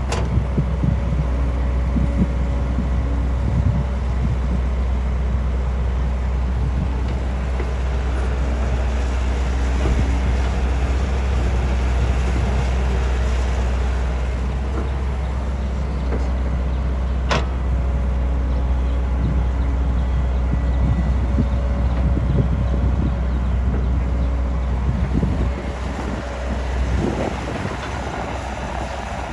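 Construction machinery running steadily with a low engine rumble. There is a sharp knock at the start and another about 17 seconds in.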